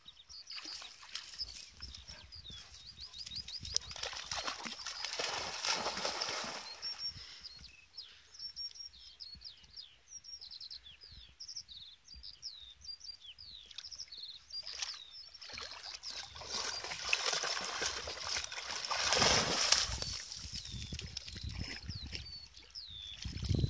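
Dogs sloshing and splashing through pond water in two longer spells, about four seconds in and again from about sixteen seconds. Birdsong of short, high chirping notes runs on throughout.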